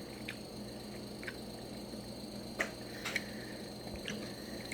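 Person chewing a mouthful of marinated raw beef. Faint wet mouth clicks and smacks come every second or so, the strongest about two and a half and three seconds in.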